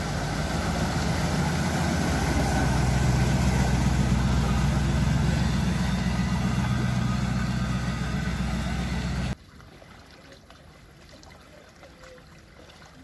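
A military Humvee's engine running steadily as it drives through deep floodwater, with water rushing and splashing around it. The sound cuts off abruptly about nine seconds in, leaving only faint sounds of water.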